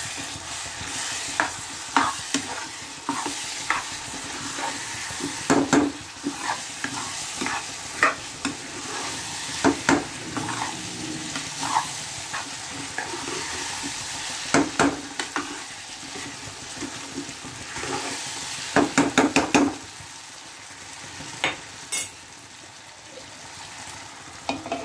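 A steel ladle stirring and scraping a sizzling carrot, pea and potato curry in a kadhai. Steady sizzling runs under frequent clinks and knocks of the ladle against the pan, with a quick run of taps a few seconds before the end, after which the sizzle eases.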